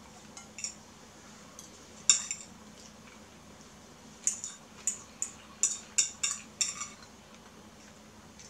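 Metal fork clinking and scraping against a ceramic bowl while someone eats fried rice: about ten short, sharp clinks. The loudest comes about two seconds in, and a quick run of them follows between four and seven seconds.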